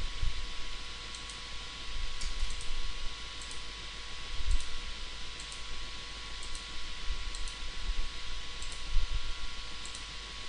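Computer mouse clicking about once a second, faint short ticks over a steady recording hiss and hum, with a few low bumps.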